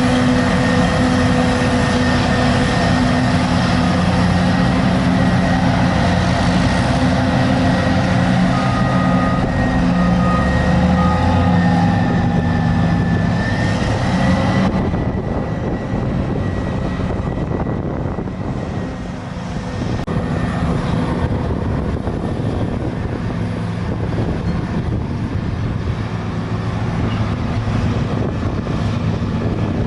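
Forage harvester and tractor engines running steadily while chopping maize: a heavy drone with a high whine. About halfway through the sound turns duller as the high whine fades.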